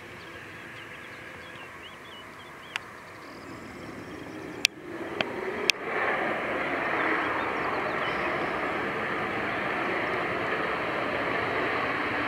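Birds chirping over faint outdoor background, then a few sharp clicks about halfway through. After the clicks comes the steady, louder rushing of a twin-engined business jet's rear-mounted turbofans as the jet moves along the runway.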